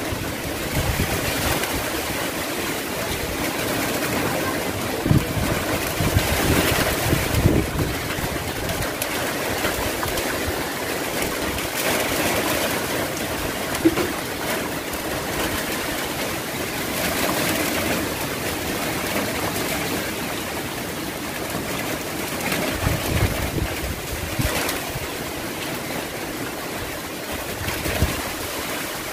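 Typhoon-force wind blowing in gusts that swell and ease every few seconds, with low rumbling buffets of wind on the microphone.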